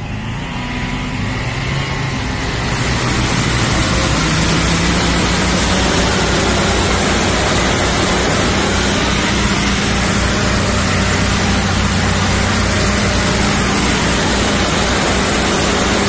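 High-pressure drain jetter running on both engines, its engine note rising over the first few seconds as the pressure comes up to its 350-bar limit. Then comes a steady, loud hiss of water jets blasting from an Alien rotating jetting nozzle.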